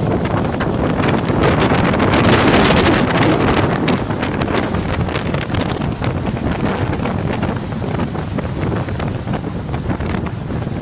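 Small motorboat under way at speed, heard as heavy wind buffeting the microphone over the engine and rushing water. It is loudest for a couple of seconds about two seconds in.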